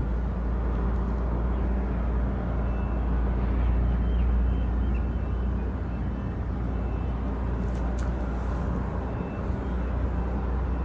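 Steady low engine rumble with a constant hum, like motors and traffic heard across open water, with a faint tick about eight seconds in.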